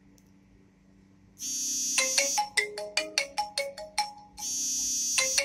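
A mobile phone ringtone: a held electronic tone, then a quick run of short melodic notes. It starts about a second and a half in and begins again about three seconds later.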